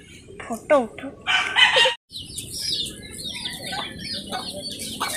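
Chickens in an open yard clucking and calling, a run of many short, high chirping notes that starts after a brief cut about two seconds in.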